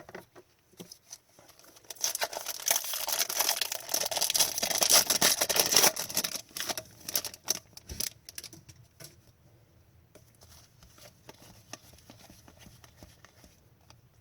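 A hockey card pack's wrapper being torn open and crinkled for about four seconds, starting about two seconds in, then sharp clicks and light rustling as the cards inside are handled.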